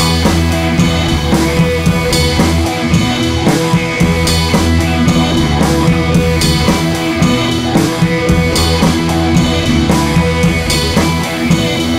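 Background rock music with drums and guitar at a steady beat.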